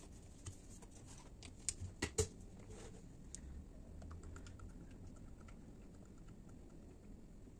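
A few sharp plastic clicks in the first two seconds as the cap of a fork-oil bottle is twisted off and the bottle handled, then, from about three seconds in, a faint steady pour of fork oil into a plastic measuring cup.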